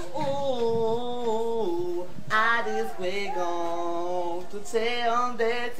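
A person singing alone in a high voice, in long held notes that slide up and down in pitch, some with a quick warble.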